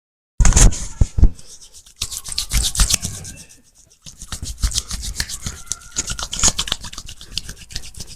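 A barber's hands rubbing and scratching over skin and hair during a massage: a dense run of quick scratchy, crackling strokes. A few hard thumps come in right at the start.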